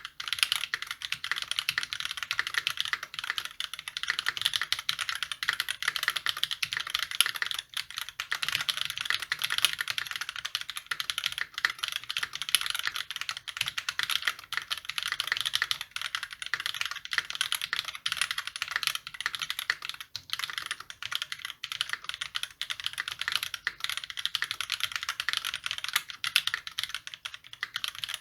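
Continuous fast typing on a custom E8.5 mechanical keyboard with lubed YOK Panda tactile switches, a brass plate, Everglide stabilisers and GMK doubleshot ABS keycaps: a dense stream of keystrokes with only brief pauses.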